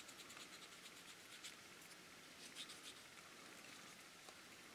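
Faint, scratchy rubbing of a cotton swab on the clear-coated plastic body of a scale model car, in short repeated strokes, as semi-gloss black paint is wiped off the clear coat.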